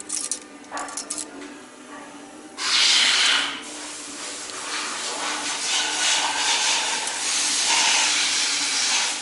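A few light metallic clicks, then about two and a half seconds in a loud hiss of rushing air starts suddenly, strongest for about a second and then continuing steadily.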